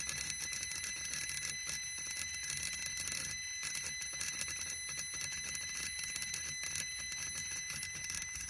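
Electronic throttle body of an Audi S6 C5 making a steady high-pitched buzz while held open: the abnormal throttle-body noise being diagnosed.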